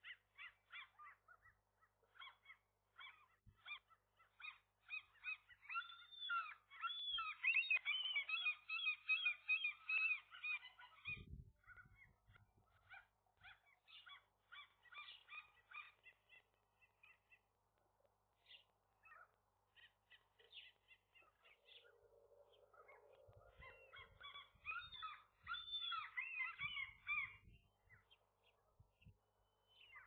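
Gulls calling: quick runs of short, harsh, repeated calls, loudest about six to eleven seconds in and again near the end, with scattered single calls between. A few low thumps are heard around the middle and near the end.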